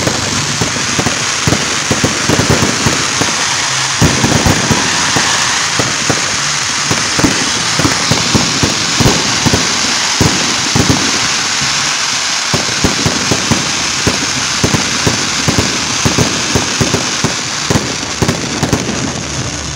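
A fireworks display: a continuous hissing crackle of ground fountains spraying sparks, punctuated by many sharp bangs and pops from shells and mines, several a second.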